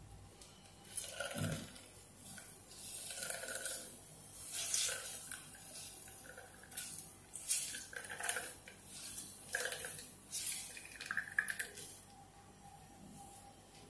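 Wet squelching of ground coconut wrung in a cloth, with coconut milk trickling and splashing into a steel pot in irregular spurts. It dies down near the end.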